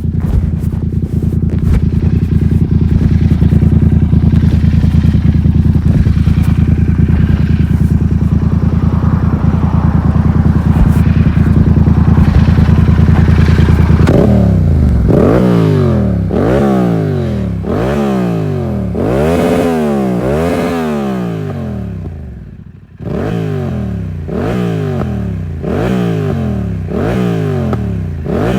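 Yamaha MT-07's parallel-twin engine through an SC Project full stainless exhaust with no dB killer, running at steady revs for about fourteen seconds. It then revs up and drops back over and over, about once a second.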